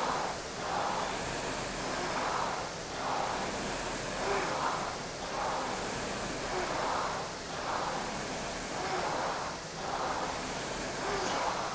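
Concept2 indoor rower's air-resistance flywheel whooshing in a steady rhythm, one rushing surge of air on each drive stroke, about every one and a half seconds. The louder the whoosh, the harder the stroke is being pulled.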